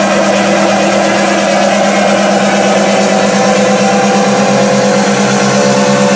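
Loud electronic dance music over a club sound system: a steady, buzzing synth note that pulses rapidly, with higher held notes coming in about five and a half seconds in.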